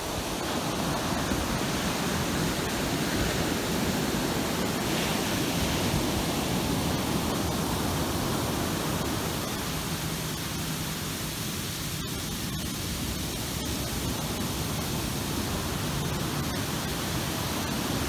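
Steady rush of ocean surf and a waterfall pouring from a sea cliff onto the beach.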